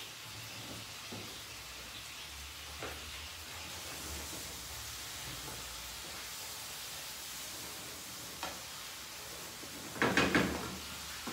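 Sauce sizzling steadily in a frying pan as it is stirred with a wooden spatula, with a couple of faint taps; a short louder burst near the end.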